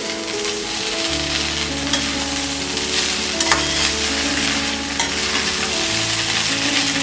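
A metal spoon stirring and tossing poha (flattened rice) with peanuts in a kadai over the flame, the grains sizzling in the oil, with a few scrapes of the spoon against the pan.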